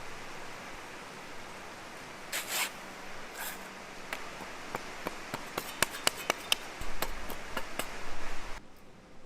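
Light, sharp taps and clicks of small hand work over a steady hiss, preceded by two brief scraping rustles; the taps come quicker and closer together in the second half, and the hiss cuts off suddenly near the end.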